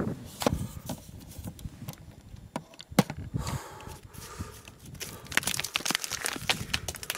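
Scuffs, scrapes and knocks of a climber's boots and hands on rock, mixed with handling noise from the handheld camera. There is one sharp knock about three seconds in and a quick run of small clicks and scuffs near the end.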